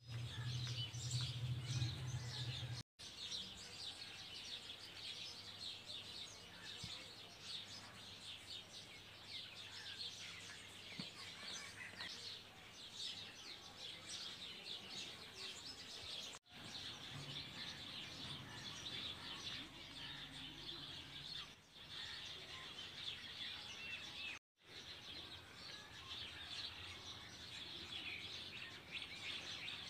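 Many small birds chirping, a dense, continuous chatter of short high calls, with three brief dropouts to silence.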